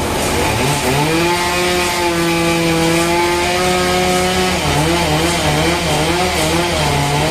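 Motor-driven saw running while cutting wood. Its engine pitch rises about a second in, holds steady, then wavers up and down rapidly as the load on the blade changes.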